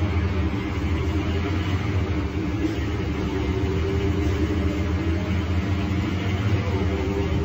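Scania DC09 five-cylinder inline diesel of a rear-engined Scania K310 city bus running at a steady speed, its note holding level, heard from inside the passenger cabin.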